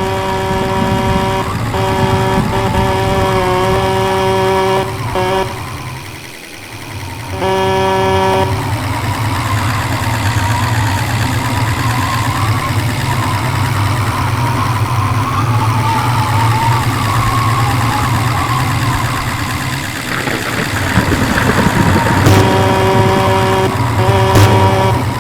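A horn sounding in long held blasts over a steady low vehicle rumble. The blasts stop for about a quarter minute in the middle, when a rushing noise takes over.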